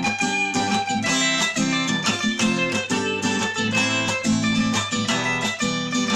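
Instrumental break of a song: strummed guitar chords keeping a steady rhythm, without vocals.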